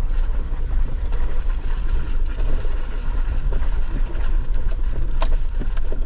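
Off-road vehicle crawling slowly over a bumpy dirt trail: a steady low rumble of engine and tyres, with one sharp knock about five seconds in.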